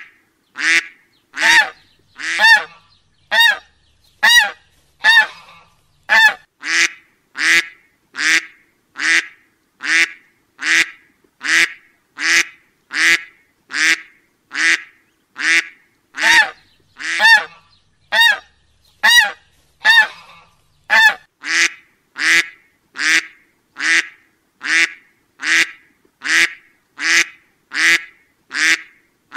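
Duck quacking over and over, short calls at an even pace of a little more than one a second.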